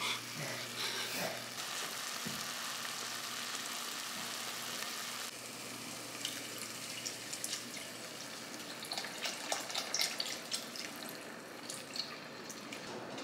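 Onions frying in a pot, a steady sizzling hiss that drops off about five seconds in. It then goes on more quietly, with scattered light clicks and taps.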